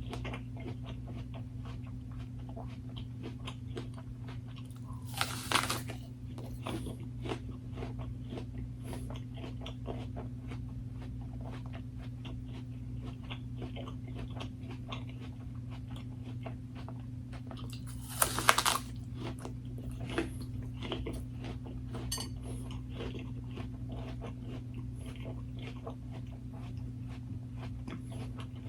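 A person chewing food, with steady small wet chewing clicks and two louder crunchy bites, about five seconds in and again about eighteen seconds in. A steady low hum runs underneath.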